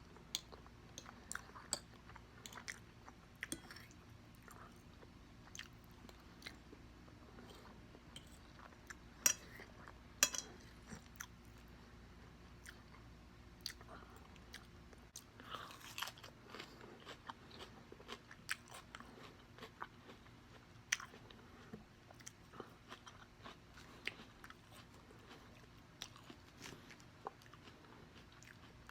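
A person chewing and biting food close to the microphone: a steady run of small wet clicks and crunches, with a few louder crunches here and there.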